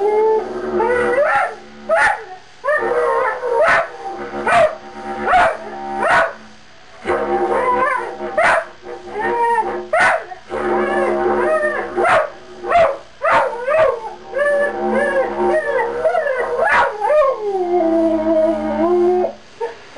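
Border collie howling along to a didgeridoo: long howls that bend up and down in pitch over the instrument's low steady drone, broken by a few short pauses and sharp clicks.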